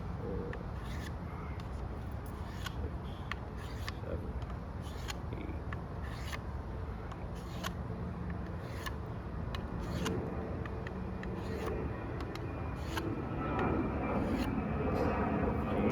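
Knife blade being drawn across a coarse diamond sharpening stone wetted with lighter fluid: a series of short scraping strokes, roughly one a second. An aircraft's engine drone grows louder near the end.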